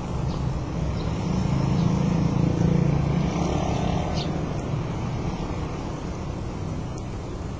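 Low engine rumble of a vehicle passing by, swelling about two seconds in and easing off, with a few faint, short bird chirps above it.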